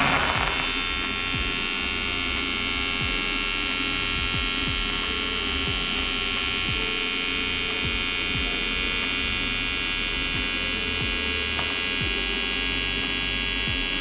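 AC TIG welding arc on aluminium from an AHP AlphaTIG 201XD. The arc strikes with a short crackle right at the start, then holds a steady, even buzz while a bead is run.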